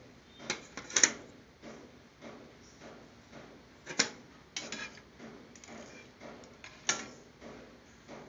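Metal tongs clacking against a non-stick frying pan as bread slices are laid in and moved: a few sharp clicks and knocks, the loudest about a second in, at about four seconds and near seven seconds.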